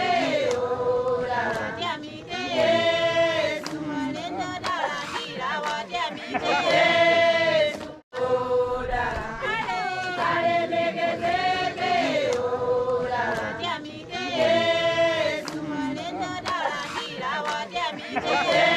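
A group of voices singing together in chorus, a melodic phrase with long held notes repeated over and over, with a sudden break about eight seconds in.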